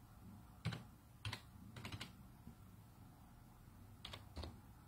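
Faint keystrokes on a computer keyboard as a username is typed: four scattered key presses in the first two seconds, then two more about four seconds in.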